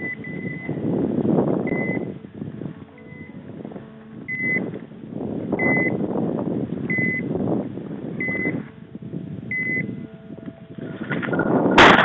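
A setter's beeper collar sounds a short high beep about every 1.3 seconds, the regular point signal of the dog holding game in cover. It plays over the rustle of scrub as the hunter pushes through. A single loud shotgun shot goes off right at the end.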